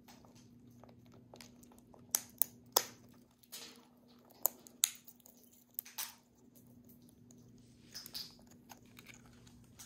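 A cockatoo and an African grey parrot cracking pine nut shells in their beaks: sharp, irregular cracks and crunches, clustered about two to three seconds in and again around five to six seconds.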